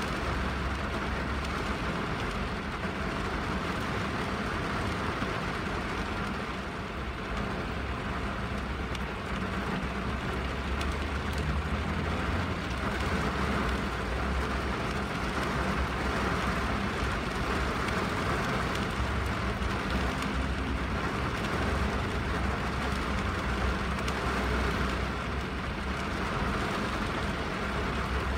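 Steady rain falling on a window and roof, a continuous even hiss of drops with a low rumble underneath.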